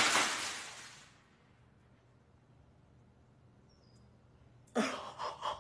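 A drinking glass shattering on a stone countertop: the noise of breaking glass and scattering shards dies away over about a second, followed by near quiet. A sudden loud burst of sound comes near the end.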